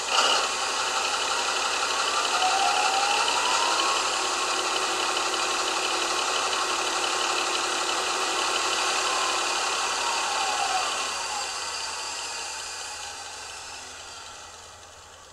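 Sound decoder in an ESU H0 model of a DB class 216 diesel locomotive playing its stationary diesel engine sound: the engine runs steadily, a whine rising in pitch a few seconds in and falling again near the end as the engine sound fades away, the running sound being switched on and then off.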